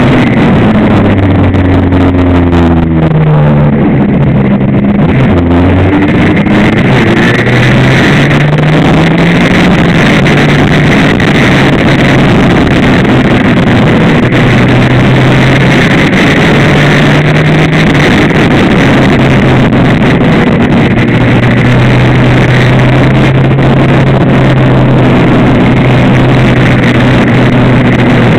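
Suzuki RGV250 two-stroke racing engine heard from the fairing, with wind noise over the microphone. A few seconds in the pitch drops in steps as it shifts down for a corner, then it climbs through the gears in several rising pulls and holds steady high revs near the end.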